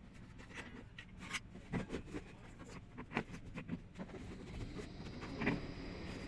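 Faint scraping, rubbing and scattered light clicks of hands handling parts while the blower fan motor is being removed. A faint steady hum runs underneath, and a faint high steady tone comes in about two thirds of the way through.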